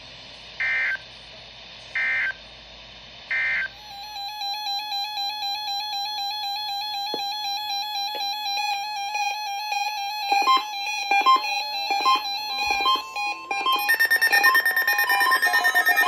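Three short digital data bursts about 1.4 s apart from a NOAA weather radio, the EAS end-of-message code closing the test message. Then several weather alert radios sound their alert beeps and stepping tones together, getting louder near the end as more of them join in.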